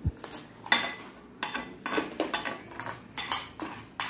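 Metal spoon clinking and scraping against a small ceramic bowl in a quick, irregular run of about a dozen sharp clicks, some ringing briefly. A short low thump comes right at the start.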